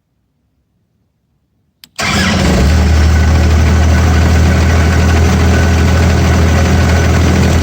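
Vermeer BC1000XL brush chipper's engine started on a newly wired ignition switch: a click, then about two seconds in the engine comes in abruptly and runs loud and steady. The switch is working.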